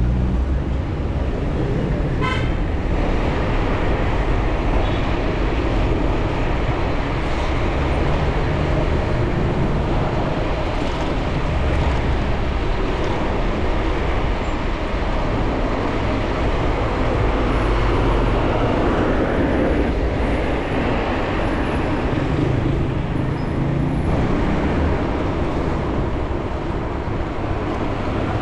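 Steady city traffic noise and wind rush heard from a moving bicycle, with a short car horn toot about two seconds in.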